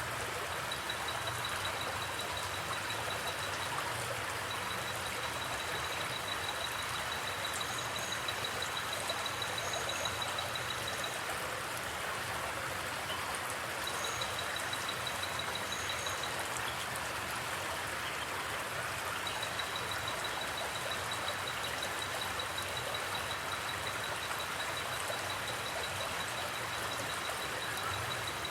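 Forest creek water flowing steadily over rocks, an even rushing murmur. Over it, a high, rapid pulsing trill comes and goes in long runs, and a few short high chirps sound in pairs.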